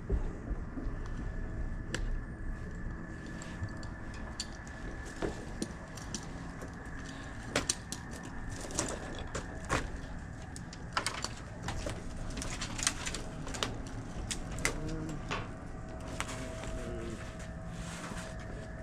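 A bird cooing low, over a steady low rumble, with scattered sharp clicks and knocks.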